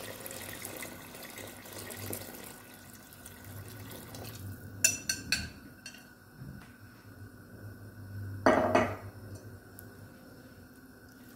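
Water poured from a glass measuring jug into a stock pot of rice and beans, splashing for about four seconds. Then three sharp clinks about five seconds in, and a short louder clatter near nine seconds.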